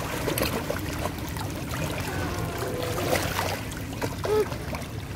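Shallow seawater splashing and sloshing as children thrash about in it, over a steady wash of small waves, with faint brief voices.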